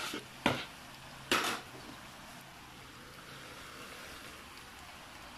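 Spatula stirring cooked macaroni and chicken in a pan, knocking and scraping against the pan a few times in the first second and a half, then only a faint steady background.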